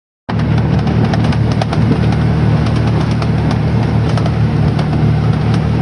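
Aluminum boat running at speed through wind chop, heard from inside its small cab: a steady engine drone with many sharp slaps of waves against the aluminum hull. The sound cuts in suddenly just after the start.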